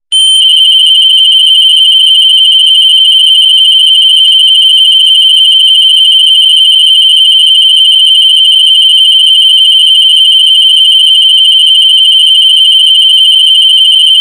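A loud, continuous high-pitched electronic tone, alarm-like, held at one steady pitch without a break.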